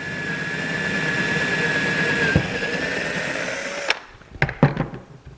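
Handheld power drill running steadily with a high motor whine as it bores a hole through a rifle stock, stopping abruptly about four seconds in, followed by a few light knocks.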